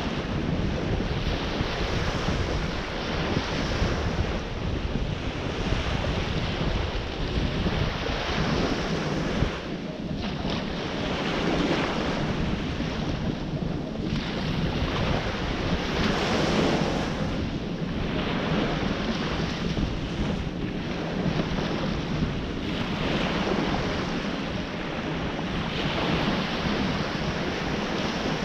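Ocean surf breaking on the shore, wave after wave, the wash swelling and easing every few seconds. Wind rumbles on the microphone underneath.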